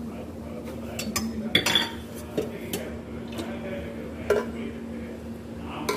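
Metal spoon knocking and scraping against a metal cooking pot while rice is spread in it: a scatter of sharp clinks, over a steady low hum.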